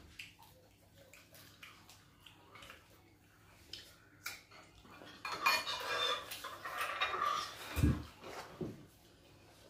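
Cutlery and dishes clinking and scraping, a spoon working in a ceramic bowl among plates. Small scattered clicks at first, then a louder stretch of scraping from about five seconds in, with a dull knock near the end of it.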